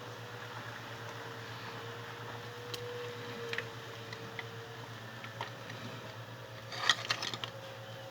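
Ford Fiesta engine running at idle with a steady low hum, scattered light ticks and rattles, and a short cluster of louder clicks about seven seconds in: the strange noise that is put down to a broken timing chain guide.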